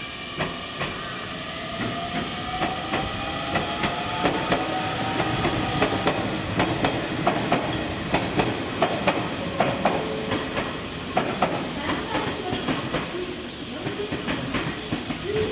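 Nishitetsu electric train pulling away and gathering speed. A faint motor whine rises slowly in pitch, and the wheels clack over rail joints and points, most thickly in the middle.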